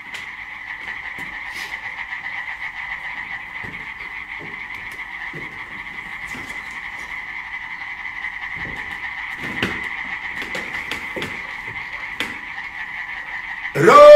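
Chorus of many frogs croaking, a dense steady trill with a few soft knocks under it. Near the end a man's loud shout cuts in over it.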